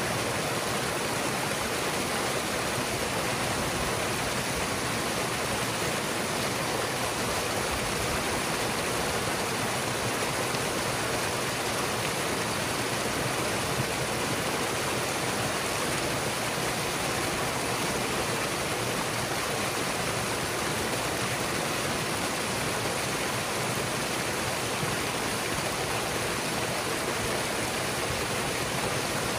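Ponded water gushing through a breach in a beaver dam and foaming down a channel of mud and sticks, a steady rushing torrent with no letup.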